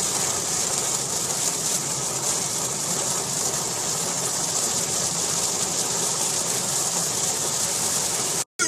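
Steady rushing noise heard from inside a moving car, even throughout with no distinct knocks or voices.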